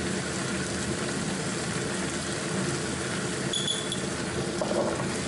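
Wild leeks, chili and bacon cooking in a frying pan, sizzling and bubbling steadily in their own juices, more boiling than frying, over a low steady hum. A brief high ping sounds about three and a half seconds in.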